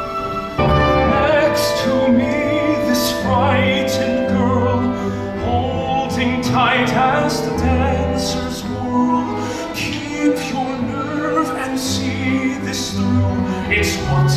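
A song from a stage musical: singers' voices holding notes with vibrato over a theatre orchestra.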